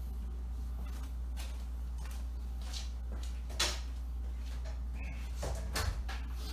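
A steady low hum with a few faint, short clicks and brushes over it.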